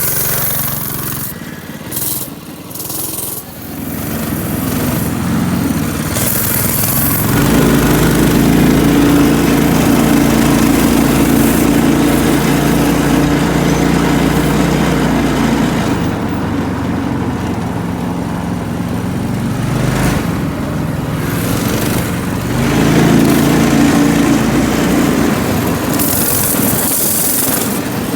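Baja mini bike's small single-cylinder engine running as the bike is ridden on its new chain. It grows louder over the first several seconds, eases off around the middle, then picks up again.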